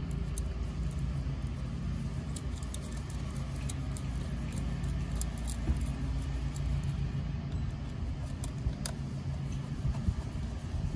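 An engine idling steadily in the background, with scattered light clicks and taps over it.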